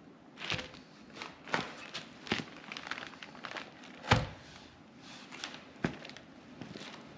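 Irregular handling noises in a workshop: scattered knocks, clicks and crinkling rustles, with one heavier thump about four seconds in.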